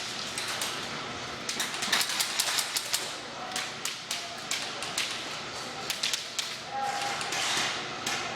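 Airsoft guns firing in a close-quarters game: scattered sharp snaps and clicks, some in quick runs, with players' voices and short shouts in the background.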